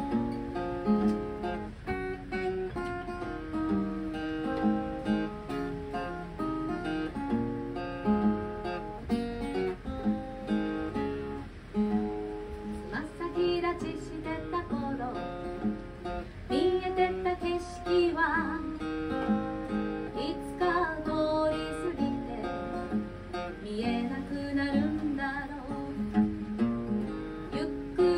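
Acoustic guitar strummed and picked in a steady song intro; about twelve seconds in, a woman's singing voice joins over the guitar.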